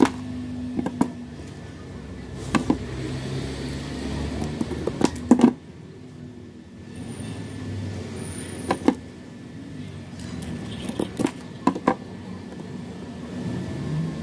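Scissors cutting through wooden ice cream sticks: a scatter of sharp snaps and clicks, the loudest cluster about five seconds in, over a steady low background rumble.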